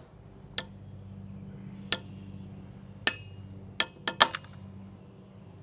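A 3D-printed PETG-CF sliding tapered dovetail joint cracking as it is twisted in a vise with a socket and torque meter: single sharp snaps about a second apart, then a quick run of four near the end as the joint gives way.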